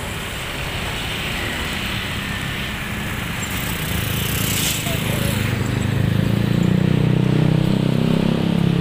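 Diesel locomotive engine running, growing louder through the second half.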